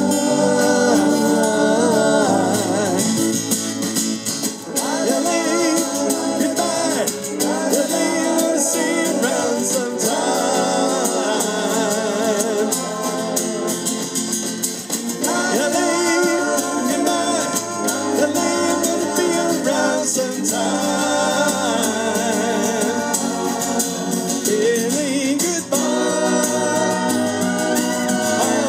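Live band playing a soft rock song, with several voices singing long held notes in harmony over guitar and rhythm section.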